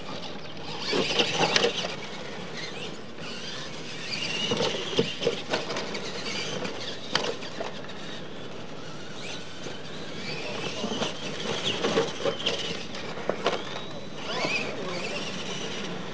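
Electric radio-controlled monster trucks racing on a dirt track: high motor whine rising and falling with the throttle, tyres on dirt, and scattered knocks from landings off the ramps.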